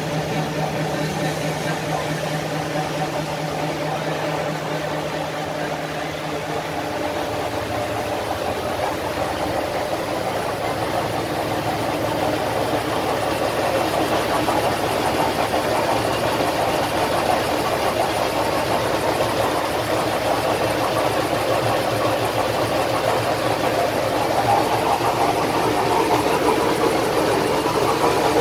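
Fellows Hydrostroke FS 400-125 CNC gear shaper running: a steady mechanical drone, with a low hum that drops out about six seconds in, growing slightly louder toward the end.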